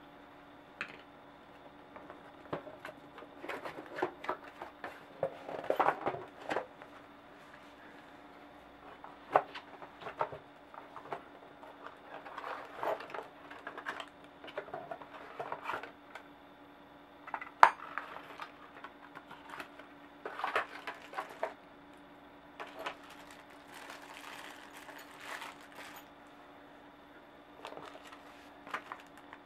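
A metal disc brake rotor and caliper handled in and out of a cardboard box: scattered clinks, taps and knocks, the sharpest a little past the middle, over a faint steady hum.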